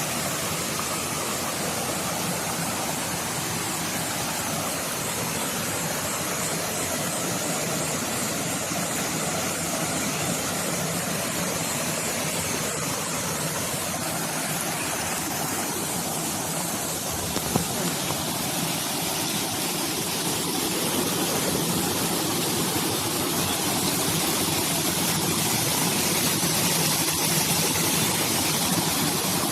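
Waterfall: a steady rush of falling water, growing a little louder about two-thirds of the way in.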